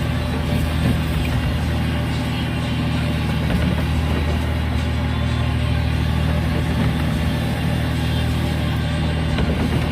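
Boat engine running steadily, a constant low drone with no change in pitch.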